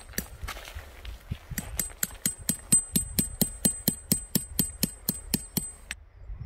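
Metal tent peg being hammered into gravel: a fast, even run of strikes, about five a second, each with a thin high ring, after a few looser knocks; the strikes stop shortly before the end.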